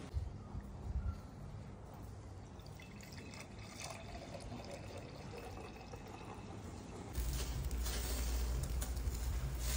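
Red wine poured from a glass decanter into a wine glass. About seven seconds in, a louder steady low rumble with a hiss takes over.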